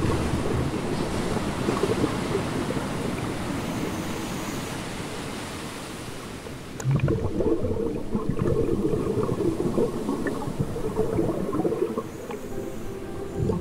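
Underwater rush of churning water and air bubbles. About seven seconds in it turns suddenly louder and choppier, a dense bubbling and gurgling.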